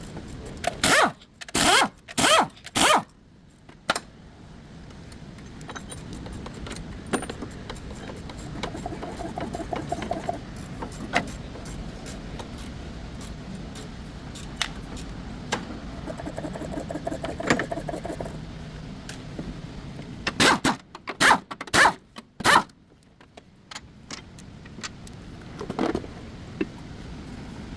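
Metal hand tools and parts clanking and scraping during work on a car's engine mount, in two clusters of loud sharp strokes about half a second apart, with scattered lighter clicks between them over a steady low background.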